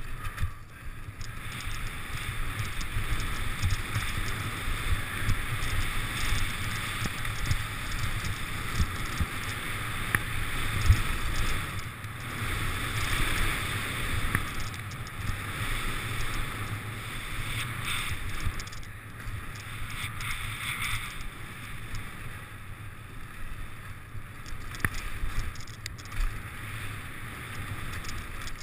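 Mountain bike descending a dirt-and-gravel trail at speed: tyres rolling and crunching over the surface, the bike rattling, and wind on the camera microphone. One sharp knock stands out about eleven seconds in.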